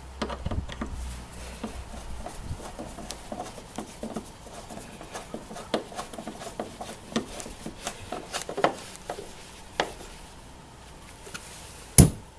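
Screwdriver turning the Phillips screws that fasten the Ford Focus MK2 rear light unit, with irregular small clicks and rubs of tool and plastic. A single sharp knock near the end.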